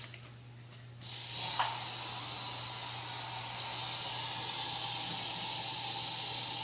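Aerosol can of bug spray hissing in one long continuous spray, starting about a second in.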